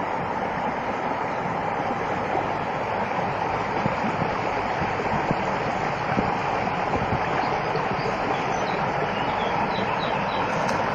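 Steady rush of running water, with a few faint high bird chirps in the second half.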